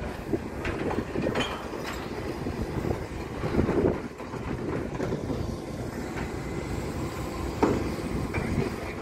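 Garbage truck running, with irregular metal clanks and knocks over the steady rumble. The loudest knocks come about three and a half seconds in and again near the end.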